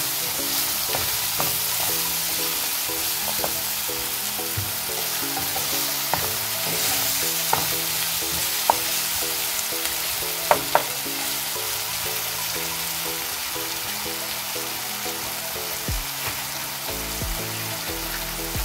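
Ground pork and onion frying with a steady sizzle in a nonstick pan while being stirred with a wooden spatula, which gives short sharp clicks against the pan now and then.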